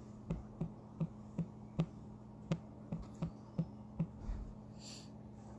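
Light, sharp taps repeating at about two and a half a second over a faint steady electrical hum, with a brief soft hiss near the end.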